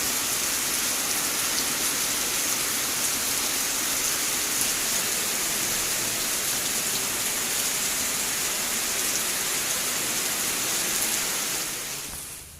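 Heavy rain falling steadily, a continuous hiss of downpour with faint drop ticks, fading out near the end.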